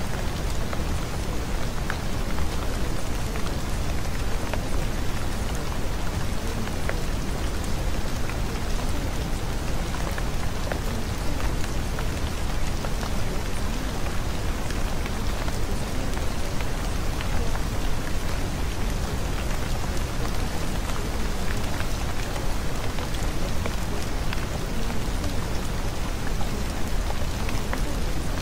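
Steady rain falling, with scattered drop ticks over an even hiss.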